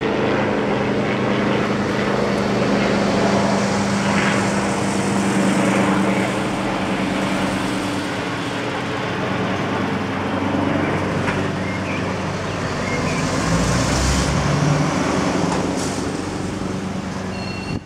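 Small two-bladed light helicopter flying low overhead: a loud, steady drone of engine and rotor that holds a constant pitch throughout.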